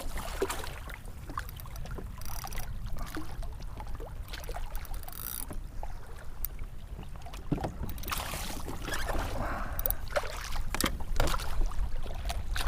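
Water sloshing and splashing around a kayak, with scattered knocks and clicks on the hull and a steady low wind rumble on the microphone.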